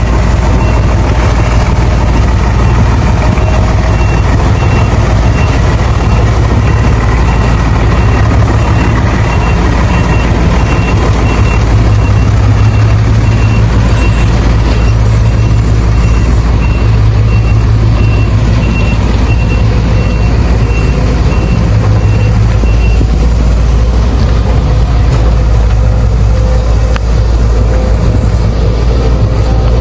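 Heavy diesel engines of a dump truck and an excavator running loud and steady. A reversing alarm beeps at an even pace from a few seconds in until about two-thirds of the way through.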